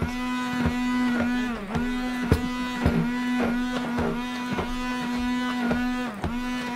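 Stick blender motor running with a steady hum while blending thick hot-process soap batter, its pitch sagging briefly every second or so as the blade bogs down in the batter, with short knocks in between.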